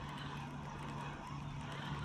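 Spinning reel being cranked during a lure retrieve: a faint, regular ticking a few times a second over a steady low hum.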